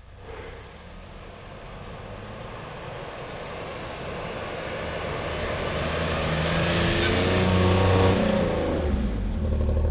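Nissan Pathfinder's engine working harder and harder as the SUV pushes uphill through deep, slippery snow, with a hiss of tyres and snow under it; the sound builds steadily for about eight seconds, then the engine note drops as the driver eases off.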